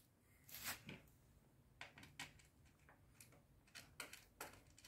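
Faint, scattered small clicks and ticks of the cooler's small metal mounting screws being turned in by hand at the CPU socket bracket, about eight in all.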